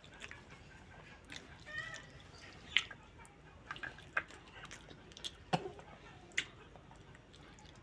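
Scattered soft clicks and taps, with one brief, faint cat meow about two seconds in.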